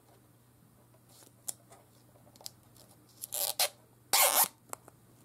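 Clear plastic packaging crinkling as a device is handled out of its bag, in two short loud rustles a little past the middle, with a few light clicks and taps before them.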